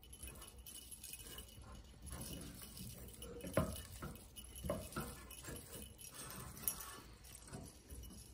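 Silicone spatula stirring melted chocolate in a stainless steel saucepan, with a few knocks against the pan, while small metal jingle bells on a sweater jingle faintly with the stirring.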